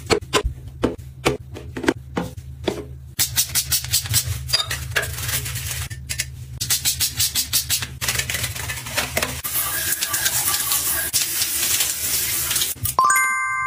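Quick clicks and rattles of plastic toiletry bottles and shower fittings being handled, then a hand shower spraying water onto the tiles for the last few seconds, ending in a short pitched tone.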